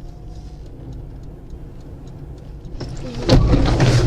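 Steady low rumble of a car heard from inside the cabin, with faint regular ticking. About three seconds in comes a sudden loud bang followed by heavy noise, the sound of a collision.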